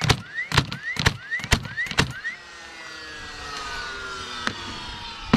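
DeWalt first fix nailer on bump fire, driving five nails in quick succession about half a second apart, its motor whining up between shots. The motor whine then winds down, with a few knocks near the end.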